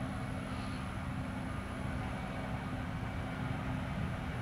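Boeing 737-800's CFM56-7B turbofan engines at takeoff power during the takeoff roll: a steady low rumble.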